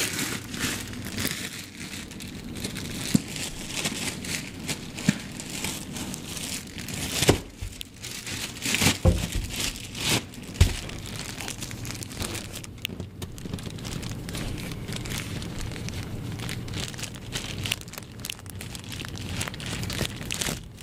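Plastic bread bag crinkling and rustling as it is twisted and tied closed, with a few knocks from handling.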